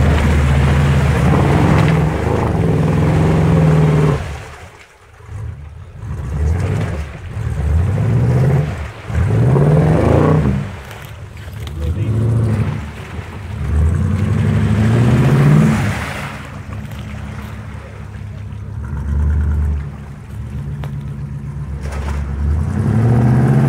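Off-road truck engine revving hard in repeated bursts, its pitch climbing with each push of the throttle, as the wheels spin and churn through deep mud and water.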